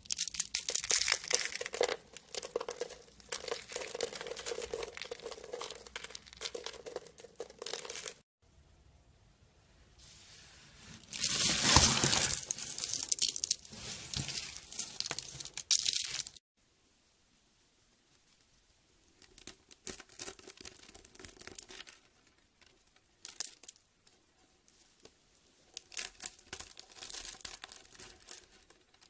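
Hard soap crackling and crunching as it is cut, in several separate passages: a dense crackle, then a louder crunching stretch about eleven seconds in, then scattered crunches after a short silence.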